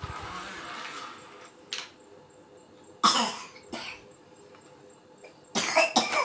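A young child coughing: short, sharp coughs about three seconds in and a quick pair near the end, after a soft rustling at the start.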